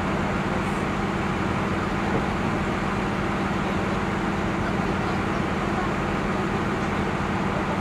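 Steady drone of a river passenger boat's engine, a constant low hum over an even noise, with no firework bangs standing out.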